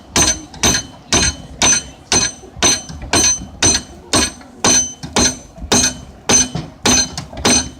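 Blacksmith's hammer striking metal on an anvil in a steady rhythm of about two blows a second, each blow ringing briefly; the hammering stops near the end.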